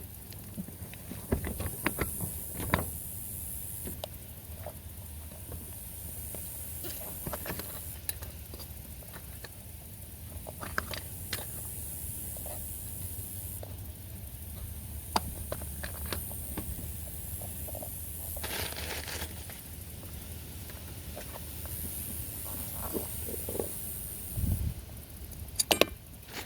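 Scattered small clicks, taps and scrapes of a push-on axle cap being worked onto the front wheel spindle of a Husqvarna LGT2554 riding mower, with a few sharper knocks near the start and a quick cluster near the end, over a steady low background rumble.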